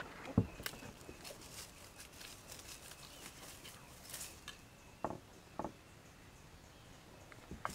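Quiet woodland creek ambience with scattered light rustling and crackling, a soft knock about half a second in, and two more soft knocks about five seconds in.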